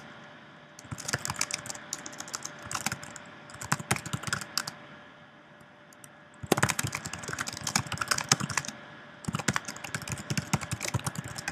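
Typing on a computer keyboard: quick runs of key clicks in about four bursts with short pauses between them.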